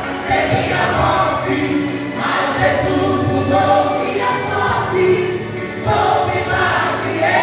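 A church vocal group singing a Portuguese gospel song together, in long held sung phrases.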